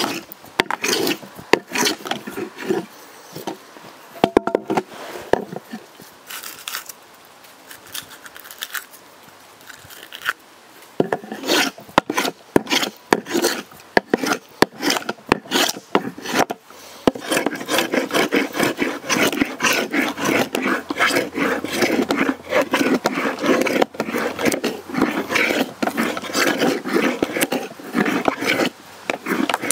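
A hand tool worked back and forth over oak wood in repeated rubbing strokes. The strokes are spaced out at first and pause for a few seconds, then pick up again and turn into a fast, steady run about two-thirds of the way through.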